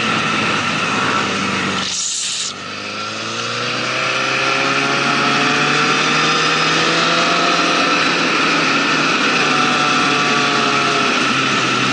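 Motorcycle engine running at road speed, heard through an onboard camera with wind and road noise. About two seconds in there is a short hiss and a brief dip in level, then the engine note rises over the next few seconds and holds steady.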